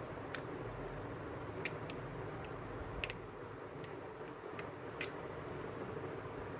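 About nine light, sharp clicks and ticks at irregular spacing, the loudest about five seconds in, over a steady low hiss.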